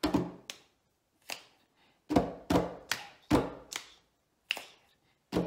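Two people's hands slapping a wooden tabletop and clapping together in a table-rhythm clapping pattern. The sharp strokes fall in a rhythmic sequence with short pauses in it.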